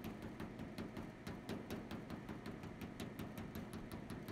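Hammer tapping rapidly and lightly on the riveted aluminum keel seam of a canoe, several sharp taps a second, knocking the seam back into shape.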